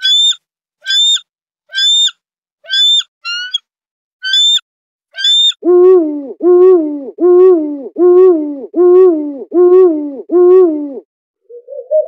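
A bald eagle's high, piping chirps, seven short calls a little under a second apart. About halfway through, a Eurasian eagle owl takes over with seven lower, drawn-out hooting calls at the same even pace.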